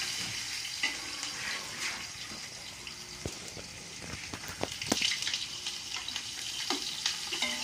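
Sliced onions sizzling in hot oil in a large aluminium pot, a steady hiss. A metal slotted spoon knocks and scrapes against the pot a few times in the second half as the onions are stirred.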